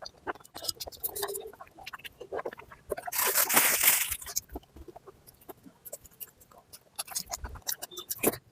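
Close-miked chewing of mutton fat curry and rice: irregular wet clicks and crunches, with one louder, longer noisy burst about three seconds in.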